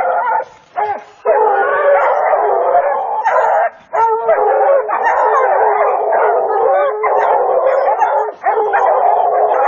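Several hunting hounds baying and howling without a break, their overlapping calls holding a mountain lion at bay, with a few brief pauses.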